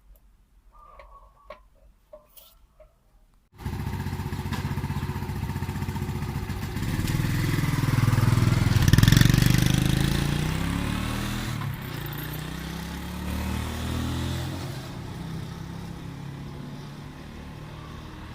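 A few faint clicks, then the Ryuka Classic 110cc motorcycle's small engine comes in suddenly about three and a half seconds in. It rises in pitch and loudness as the bike accelerates, is loudest near the middle, then falls in pitch and fades slowly.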